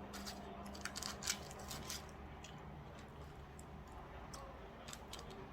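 Crisp-battered fried chicken being bitten and chewed, with a quick run of crunches in the first two seconds and a few sparse crackles after.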